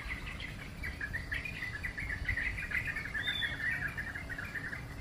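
Small birds chirping and twittering busily, many short irregular calls overlapping, with one higher whistled note a little past the middle, over a low background rumble.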